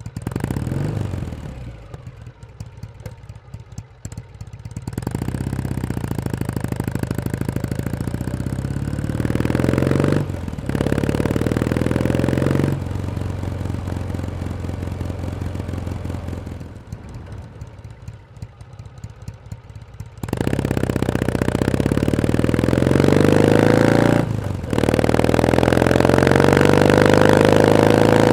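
Kawasaki W1S's air-cooled vertical-twin engine under way. It pulls hard with rising pitch about five seconds in and again about twenty seconds in, each pull broken by a brief dip at a gear change, with quieter stretches of the engine running easy in between.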